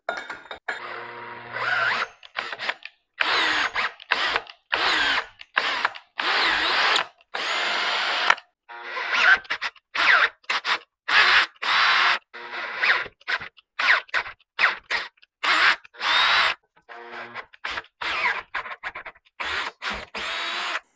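Power drill driving a tap to cut threads in the bolt holes of a metal flange, the motor running in many short bursts that start and stop over and over.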